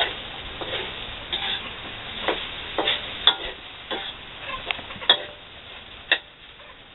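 Metal spatula scraping and clinking against a wok as food is stir-fried, about ten irregular strikes at roughly one or two a second, over a faint sizzle.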